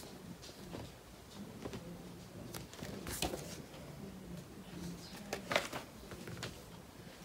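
Quiet room with a few soft rustles of paper as the pages of a paperback picture book are handled and turned, over a faint low hum.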